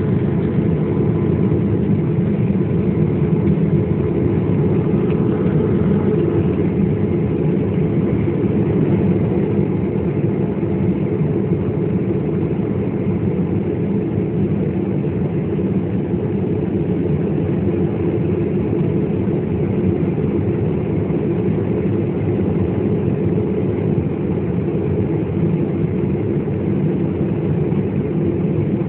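Steady low rumble of a Bamboo Airways airliner's engines and airflow heard from inside the cabin during landing.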